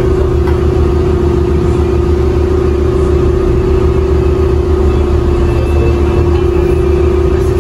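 Dive boat's engine running steadily, heard inside the cabin as a constant low drone with a steady mid-pitched hum over it.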